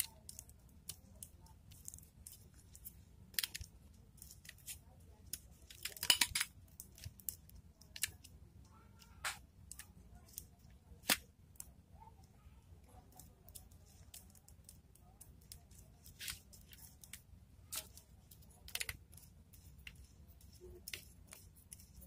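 Scattered small clicks and rustles of insulated wires being handled, twisted and fitted into the screw terminals of a magnetic contactor, with a louder crackle about six seconds in and a sharp click about eleven seconds in.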